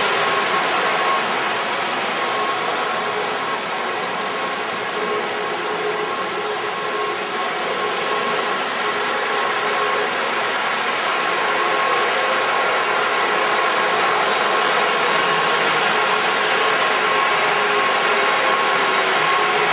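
Lionel O-gauge F3 diesel locomotive set running on the layout track: a steady whir with a constant high whine, with no clicks or breaks.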